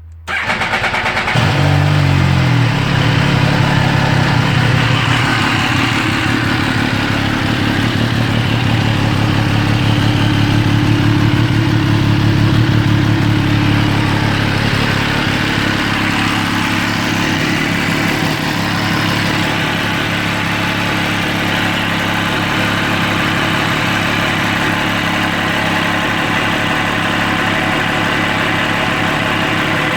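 MV Agusta Stradale 800's three-cylinder engine, already warm, started right at the beginning. It blips once in pitch and then idles steadily, settling to a slightly lower, quieter idle after about a quarter of a minute.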